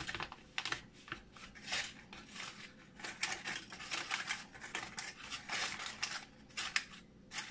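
Paper muffin liners being pulled apart from a stack and pressed into a thin foil pie plate, giving irregular crinkly rustles and scrapes.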